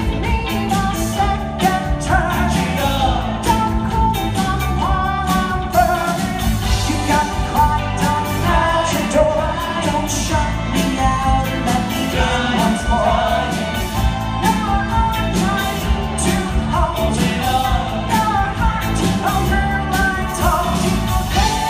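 Live band with electric guitar, bass guitar and drums backing four men singing a rock-and-roll pop song together.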